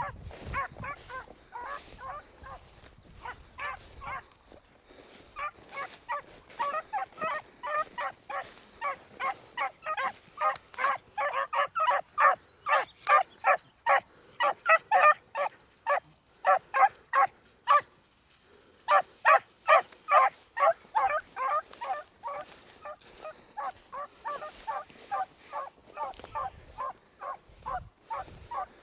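A pack of beagles giving tongue in chorus while running a rabbit track: a steady stream of short, honking bays, several a second. The calls stop briefly a little past halfway, then pick up again.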